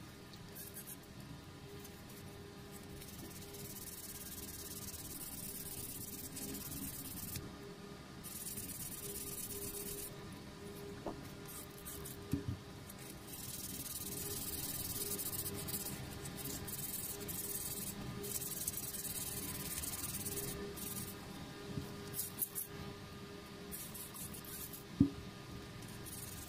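Sandpaper rubbed by hand along the edges of a model car's black-framed clear plastic window, in runs of scratchy rubbing broken by short pauses. A sharp click, the loudest moment, comes near the end.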